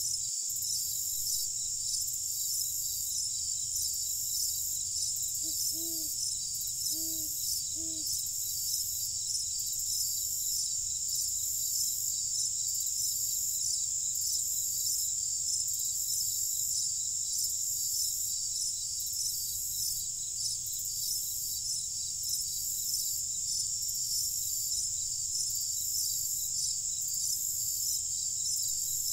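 Night chorus of crickets: a steady high-pitched trill with a slow, even pulse. About six seconds in, four short low hoots sound over roughly two seconds.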